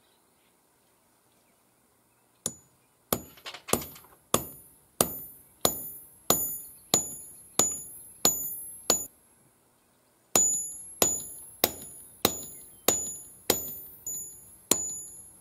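Small sledgehammer striking a steel rod to drive a rifling button through a steel DOM tube, each blow a sharp impact with a high metallic ring. The blows start a couple of seconds in and come at a steady pace of about three every two seconds, roughly twenty in all, with a short pause midway.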